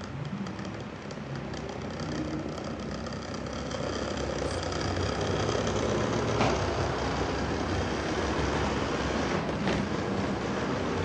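N-scale model train coaches rolling past, with their wheels rumbling on the track. The rumble grows louder about four seconds in as the coaches come close, and there are two sharp clicks later on.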